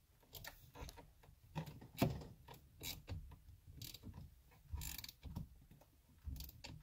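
Irregular small clicks and knocks of a hand tool and plastic as the steering-wheel airbag module's retaining bolts are driven back in from behind the wheel, with the loudest knock about two seconds in and a brief scraping rustle near the fifth second.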